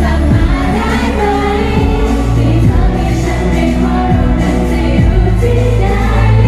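A Thai pop song performed with singing over loud musical accompaniment, with a strong, steady bass line.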